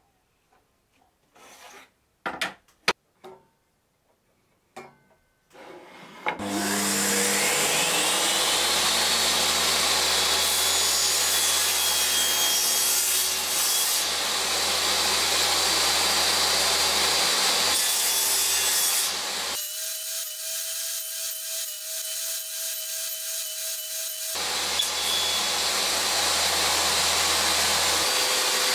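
A few light clicks and knocks, then a table saw starts about six seconds in, its whine rising as the blade spins up, and runs on steadily while wood is cut on a crosscut sled. For several seconds past the middle the sound changes abruptly to a thinner tone, then the full running sound returns.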